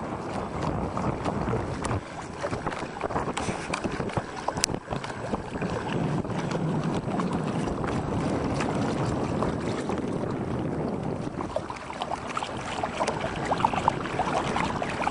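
Water rushing and splashing along the hull of a pedal-powered recumbent boat under way at speed, with wind buffeting the microphone. The splashing spatter grows denser and louder near the end.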